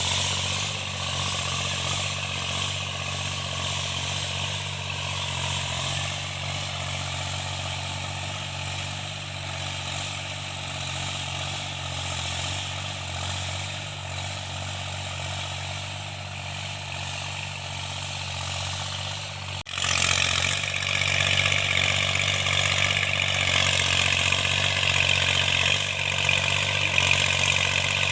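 Tractor engine running steadily, with its knocking repaired. About two-thirds of the way through the sound cuts and comes back louder, with more high rattle.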